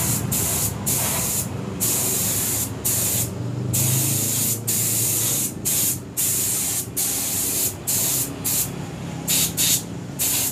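Compressed-air paint spray gun hissing in repeated bursts, cut off briefly each time the trigger is let go, as it sprays black paint thinned with thinner. A low hum runs underneath.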